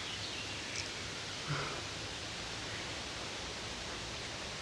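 Steady outdoor background hiss by a pond, with a faint high chirp just under a second in and a brief soft sound about a second and a half in.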